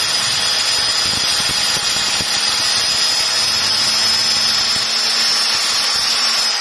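Handheld electric marble cutter with a diamond blade running steadily at full speed and wet-cutting a 45-degree corner through a marble strip. It makes a steady high whine over the hiss of the blade grinding through the stone.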